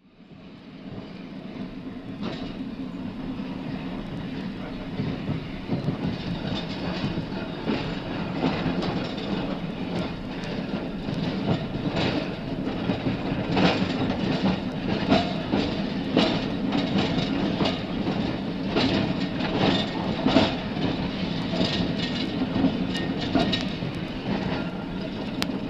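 Rail vehicle running along the track, a steady rumble with repeated clicks and knocks of wheels over rail joints, fading in from silence over the first two seconds.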